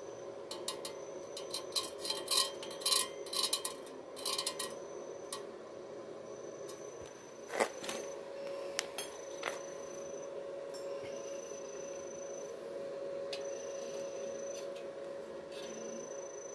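Bursts of light metallic scraping and clinking in the first few seconds, then a single sharp knock and a few small ticks, from thin steel tube being handled and set in place. A steady hum runs underneath.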